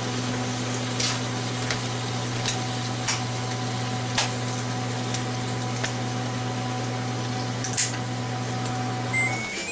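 Ninja Foodi air-crisp fan and heater running with a steady hum, with occasional sharp pops from the steaks sizzling inside. Near the end the fan stops suddenly and the cooker's electronic beeps start.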